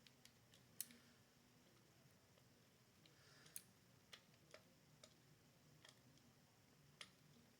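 Near silence broken by faint, irregular clicks from a Klein stubby ratcheting screwdriver with a Phillips bit as it drives a screw.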